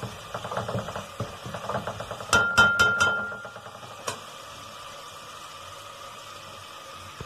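A spoon scraping and stirring masala in an aluminium pot, then about four quick taps on the pot with a ringing metallic note, followed by a steady sizzle of the tomato-and-masala mixture frying.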